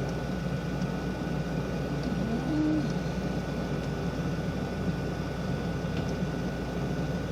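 Steady background hum and hiss, with one short, low rising tone about two and a half seconds in.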